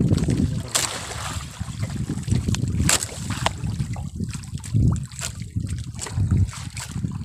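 Water splashing and sloshing against the side of a small fishing boat, with wind buffeting the microphone and several short sharp clicks or knocks.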